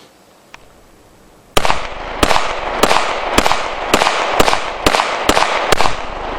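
A .40 S&W semi-automatic pistol fired rapidly, about nine shots roughly half a second apart, starting about a second and a half in, each crack trailed by an echo.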